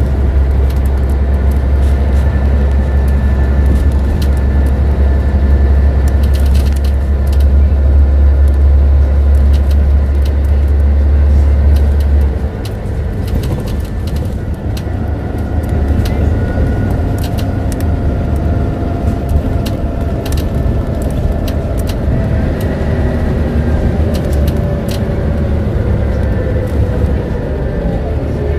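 Scania N94UD OmniDekka double-decker bus with ZF automatic gearbox driving, heard from on board: a strong deep engine drone that drops away about twelve seconds in, then a drivetrain whine that falls slowly in pitch, with light interior rattles throughout.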